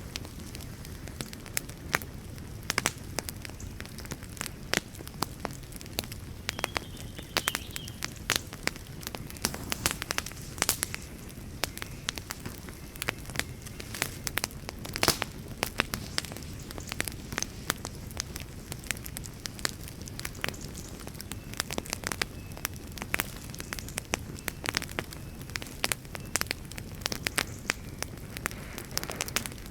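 Wood fire crackling: irregular sharp pops and snaps from the burning logs over a steady low rumble of the flames.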